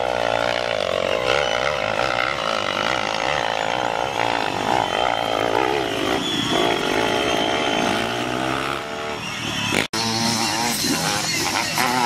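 Dirt bike engine revving hard under full throttle on a steep hill climb, its pitch rising and falling as the rear wheel spins and bites. The sound drops out for an instant near the end, then the engine revving picks up again.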